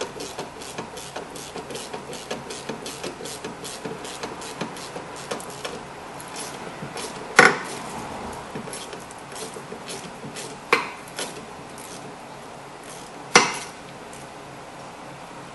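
Ratchet wrench clicking quickly, about four clicks a second, as a rusty rear brake caliper bolt is turned out on a socket extension. The clicking stops about six seconds in, and three sharp knocks follow, a few seconds apart; these are the loudest sounds.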